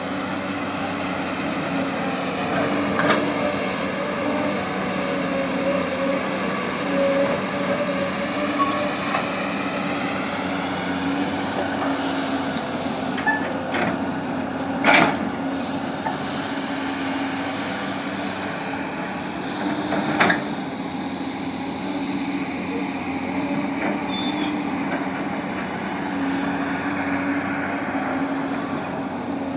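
Komatsu PC200 hydraulic excavator working: its diesel engine runs with a steady drone under load, with a whine that rises and falls. A few sharp metallic clanks come about 3, 15 and 20 seconds in, the loudest near 15 seconds.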